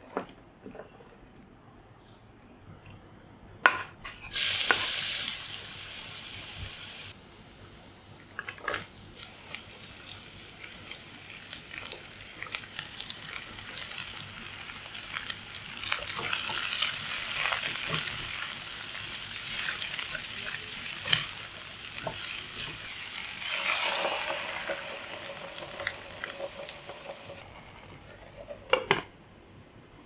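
Mixed vegetables (carrots, baby corn, green beans) stir-frying in hot oil in a non-stick wok. A sudden loud sizzle about four seconds in as food hits the oil, then steady sizzling that builds as the vegetables go in and are tossed and stirred, with clicks and scrapes of the spatula against the pan and a louder clack near the end.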